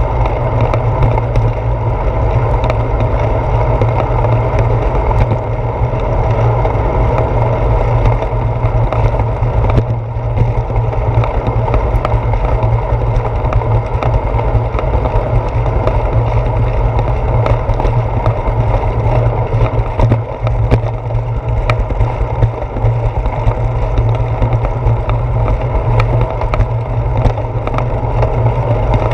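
Bicycle rolling fast along a concrete sidewalk, heard through a handlebar-mounted GoPro: a steady low rumble of tyre and frame vibration with many small irregular knocks and rattles.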